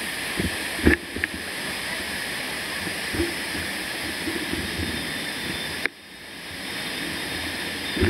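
Mountain bike rattling over a rough dirt forest trail, with a few sharp knocks about a second in and another at the end, over a steady hiss. The hiss drops out suddenly near six seconds and slowly fades back in.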